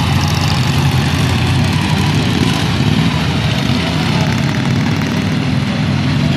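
Several racing lawn tractors with Briggs & Stratton Vanguard 16 hp V-twin engines running together on the track, a loud, steady engine noise with no let-up.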